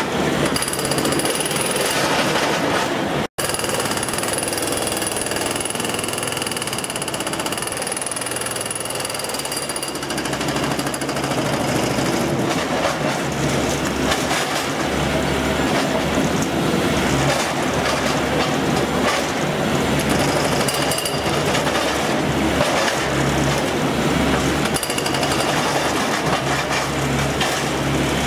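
Hydraulic breaker on a Brokk 800 demolition robot hammering continuously at the mouth of a steel ladle, knocking built-up slag off the hot lip. The hammering cuts out for an instant about three seconds in.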